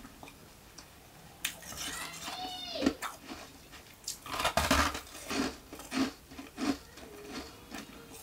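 Ice nuggets bitten and chewed close to a microphone. A click and a short squeak come in the first few seconds, then a run of crisp, irregular crunches, loudest just after the halfway point.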